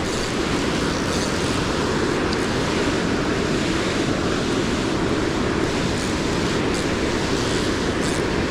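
Steady rush of water pouring over a low-head dam spillway and churning below it.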